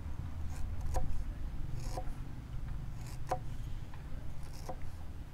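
Knife slicing through ginger root, about five separate cuts roughly a second apart, over a low steady hum.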